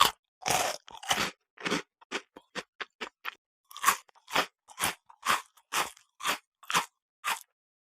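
A person chewing crunchy food with short, sharp crunches about two a second, which stop near the end.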